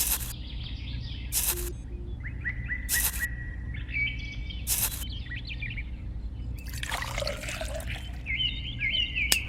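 Small birds chirping, with sharp clicks about every one and a half seconds and a short burst of noise near the end over a steady low hum.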